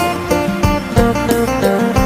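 Isan phin, the plucked Thai lute, playing a quick melody of short notes over a steady drum beat.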